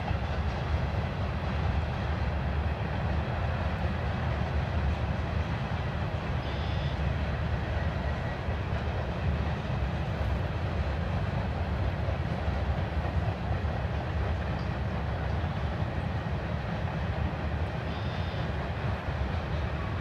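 Freight cars of a long mixed freight train rolling past at a distance: a steady, continuous rumble of wheels on the rails, heaviest in the low end.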